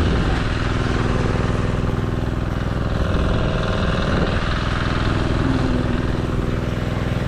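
Generator engine running steadily with an even hum, too noisy to talk over comfortably.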